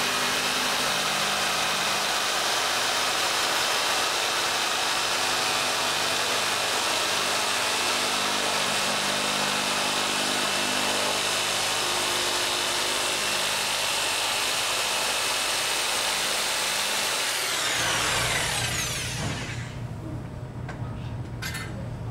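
Handheld electric power drill running steadily at full speed with a high whine, then winding down with a falling pitch near the end as it is switched off.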